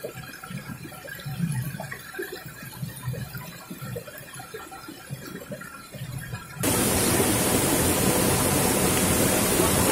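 Rushing water of a rocky jungle stream: a loud, steady rush that starts abruptly about two-thirds in. Before it there are only faint, irregular low sounds.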